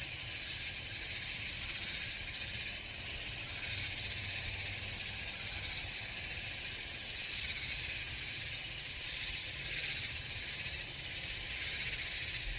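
A chorus of cicadas (chicharras) calling over one another in a dense, high-pitched buzzing drone that swells and fades every second or two.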